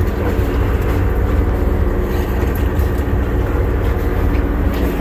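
Boat engine running steadily, a low hum holding one pitch.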